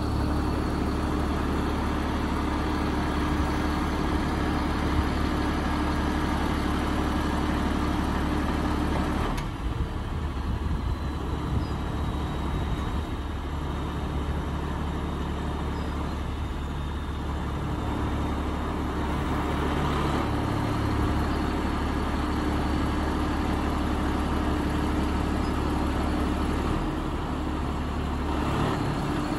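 Truck engine running to drive the HMF Z loading crane's hydraulics while the boom is folded in by remote control. The sound is steady, and its tone shifts about a third of the way in and again near the end.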